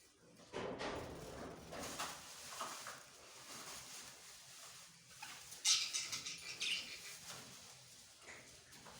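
Budgies moving about in their cage: irregular rustling, scratching and wing flutters, with a louder flurry about six seconds in.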